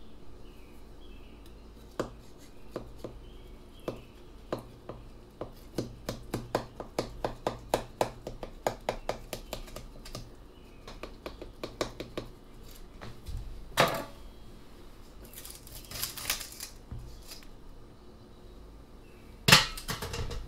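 A small knife run around the inside of a springform pan's metal ring, making long runs of quick small clicks and taps against it. Then comes a knock and a scraping rattle as the ring is unlatched and lifted off, and a loud metal clatter near the end as it is set down in the sink.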